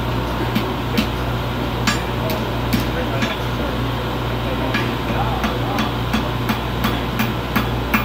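Blacksmith's hammer striking steel on an anvil while forging, about two blows a second, with a short pause midway. A steady low hum runs underneath.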